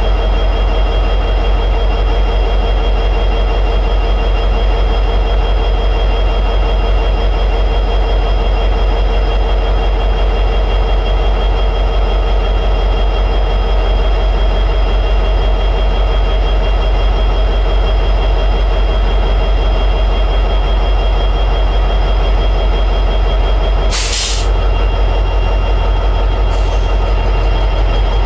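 EMD 710G3B two-stroke diesel prime mover of an SD60E locomotive running steadily at high idle, a deep, even drone. Near the end there is a short, loud hiss of air, then a fainter one a couple of seconds later.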